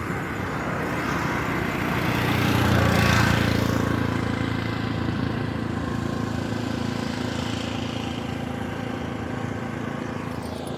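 A motor vehicle's engine running steadily, swelling to its loudest about three seconds in and then holding at a steady level.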